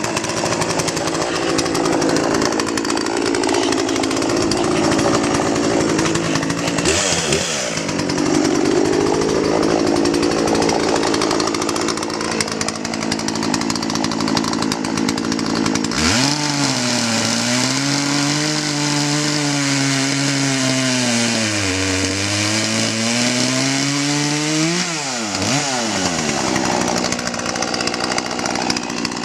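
Poulan P3816 38 cc two-stroke chainsaw running hard, with a brief dip in pitch about seven seconds in. From about halfway the engine note drops and wavers as the throttle changes, sagging to its lowest point and then climbing again.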